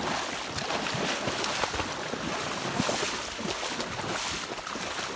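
Black Labrador retriever running through shallow water, its legs throwing up a quick, unbroken run of splashes.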